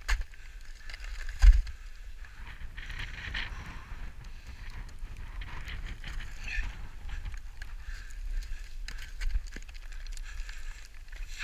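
Footsteps crunching and sliding on loose scree, with many small stones clicking and clattering and one loud knock about a second and a half in. Low buffeting on the microphone runs underneath.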